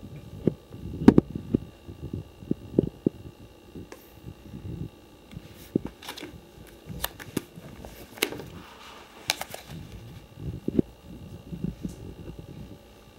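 Plastic card-binder sleeve pages being handled and turned, with many sharp clicks, low thumps and short crinkling rustles, over a faint steady hum.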